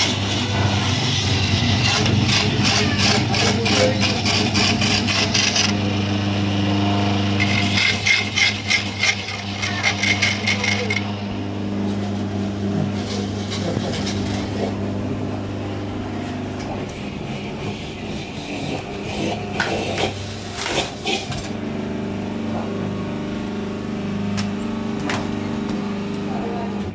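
Electric coconut grater's motor humming steadily while a coconut half is pressed against its spinning grater head, giving a loud rasping grind in long stretches. This is heaviest for the first several seconds and again around eight to eleven seconds in. Later the grinding eases, with a few sharp knocks.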